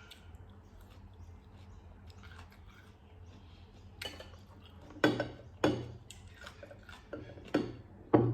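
Cutlery knocking and clinking against dishes: about six sharp knocks starting about halfway through.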